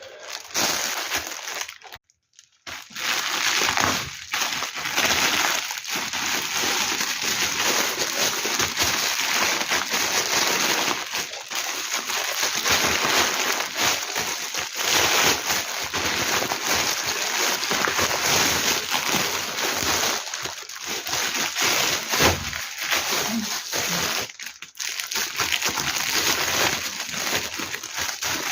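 Plastic packaging crinkling and rustling as it is handled and opened, a dense run of small crackles.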